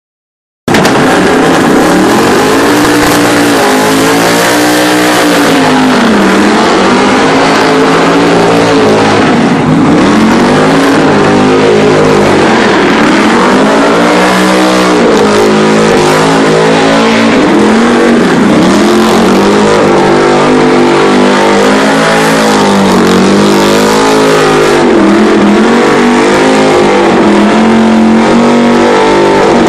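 A car doing a burnout, its engine held at high revs with the pitch sweeping up and down every few seconds over a steady hiss of spinning tyres. Loud throughout.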